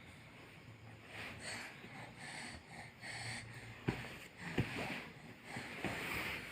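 Noisy breathing from someone with a cough: a string of short breaths about one a second, with two sharp clicks about two-thirds of the way through.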